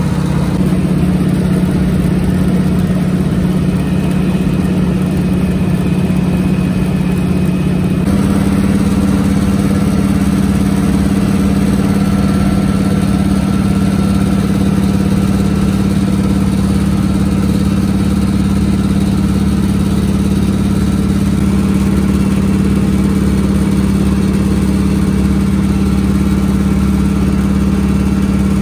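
Pratt & Whitney R-1340 nine-cylinder radial engine of a Noorduyn Norseman droning steadily at cruise power, heard inside the cabin along with the propeller and airflow noise. Its pitch steps up slightly about eight seconds in.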